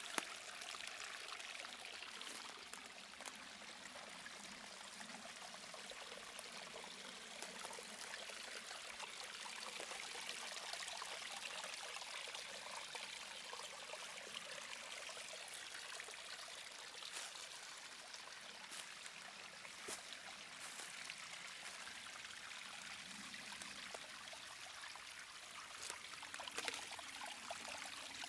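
Small forest brook trickling and splashing over rocks and stones, a steady light rush of water, with a few faint ticks now and then.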